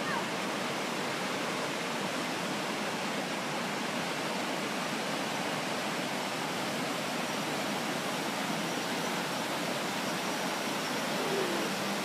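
Creek rapids rushing steadily over and between smooth boulders, a dense, even sound of white water.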